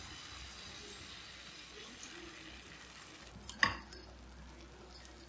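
Faint steady sizzle of crepe batter cooking on a ghee-greased nonstick tawa. About three and a half seconds in come two sharp clacks close together.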